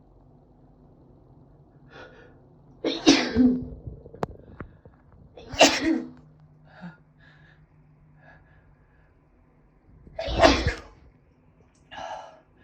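A woman sneezing three times: two sneezes about two and a half seconds apart, then a third some five seconds later, with short breaths drawn in between them.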